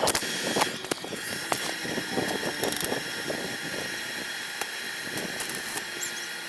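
Washing-machine motor spinning a homemade coconut grater: a steady whine, with irregular clicks and scrapes over the first three seconds.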